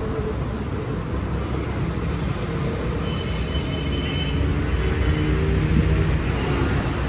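Steady outdoor market ambience: a continuous low rumble of road traffic with faint background voices.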